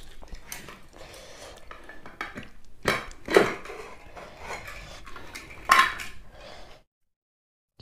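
Serving spoon clinking and scraping against a pot as rice is scooped out, with a few louder knocks and one ringing clank about six seconds in. The sound then cuts off to silence.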